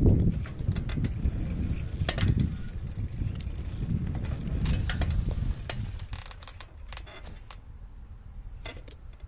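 A bicycle ridden along a paved path, rattling and clicking over the surface, with wind rumble on the microphone. The rumble fades about six seconds in as the bike comes to a stop, leaving a few faint clicks.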